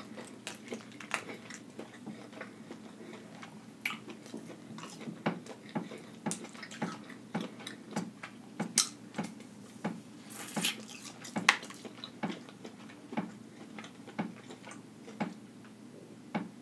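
Boiled crawfish being cracked and peeled by hand close to the microphone: a string of irregular small wet cracks and clicks from the shell, with a brief hissing noise about ten seconds in.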